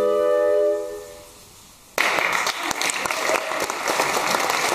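A flute quartet (two flutes, alto flute and bass flute) with a B-flat clarinet holds a final chord that stops under a second in and dies away. About two seconds in, the audience breaks into applause.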